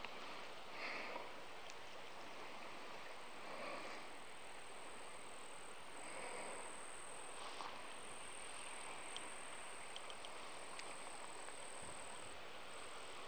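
Faint outdoor ambience: a steady soft hiss with a few gentle swells and occasional light ticks.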